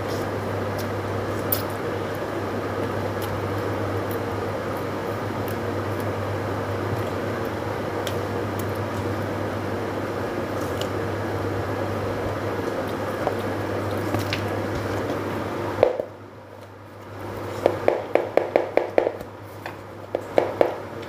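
Wet squishing and chewing of rice and curry being eaten by hand, over a steady hiss and low hum. Near the end the hiss drops away and a quick run of about eight sharp clicks follows.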